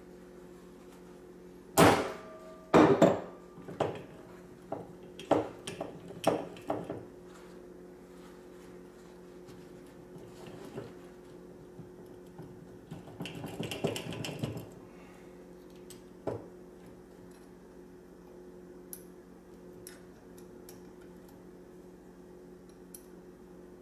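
Brass-headed hammer striking a heated Cummins ISX VGT turbo actuator to knock it apart: about eight sharp metallic blows in quick succession. After them come handling noises as the loosened parts are worked by hand and a single knock, over a low steady hum.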